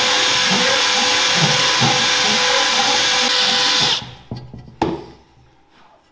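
Power drill with a step drill bit running steadily as it widens a 20 mm hole in an aluminium oil pan, stopping abruptly about four seconds in, followed by a couple of sharp knocks.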